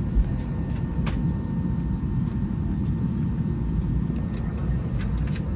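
Steady low rumble of airliner cabin noise inside an Airbus A321neo on the ground, with a faint steady tone and a single click about a second in.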